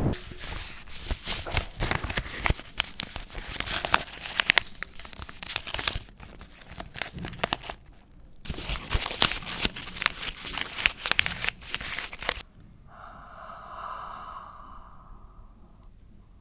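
Dense crackling and crinkling, like material being crumpled or torn, made up of many sharp clicks, with a short break about eight seconds in; it stops suddenly after about twelve seconds and gives way to a fainter steady tone with overtones.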